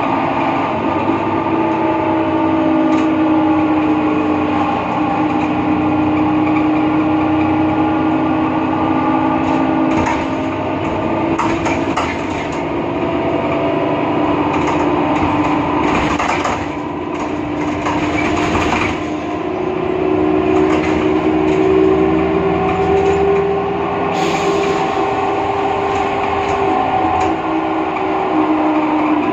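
BredaMenariniBus Avancity Plus city bus under way, heard from inside. Its drivetrain gives a steady multi-tone whine that shifts pitch with speed, stepping up in pitch about two-thirds of the way through, over engine and road rumble, with scattered rattles and knocks. The uploader attributes this strange sound to a faulty differential.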